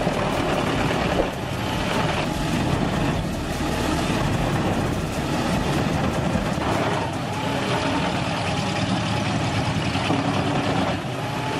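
Industrial wood chipper running under load: a steady heavy engine drone under the rough, continuous noise of wood being chipped and shredded.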